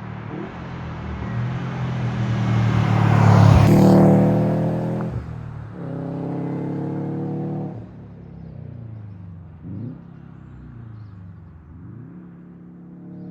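Subaru WRX STI's turbocharged flat-four engine accelerating past, loudest about four seconds in. It then carries on with the engine note rising and dropping away a few times as it drives on.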